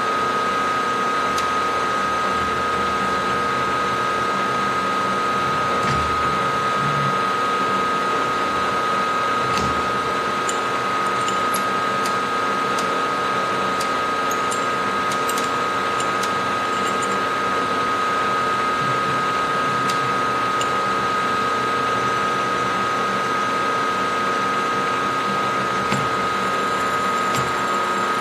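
Benchtop milling machine running steadily with a constant high whine from its spindle drive while a chamfer tool cuts a small chamfer on drilled holes, with a few faint ticks along the way.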